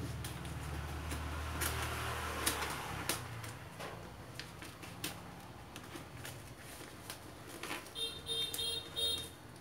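Parcel packaging being cut and torn open by hand: scattered clicks, rustling and crinkling of plastic wrapping. A low hum runs through the first three seconds, and a quick run of high squeaky pulses comes near the end.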